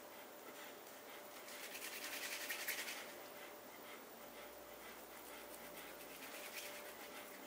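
Faint heavy breathing close to the microphone: one long rasping breath about two seconds in and a softer one near the end.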